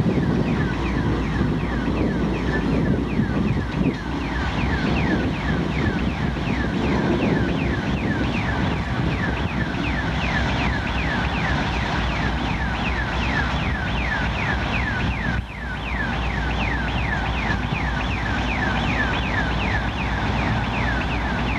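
Railroad grade-crossing warning bell ringing in rapid, evenly spaced strokes, each a short falling tone, while the crossing signals are active. Under it, a freight train's diesel locomotives and cars rumble past, strongest in the first few seconds.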